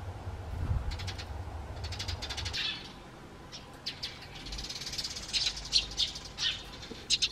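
Eurasian tree sparrows chirping, with short high chirps coming singly and in quick clusters. A low rumble underlies the first few seconds and then stops.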